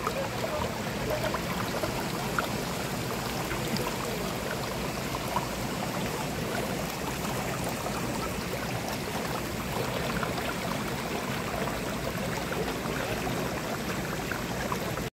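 Shallow stream running over a low rock ledge: a steady rush of water with fine splashing. It cuts off abruptly near the end.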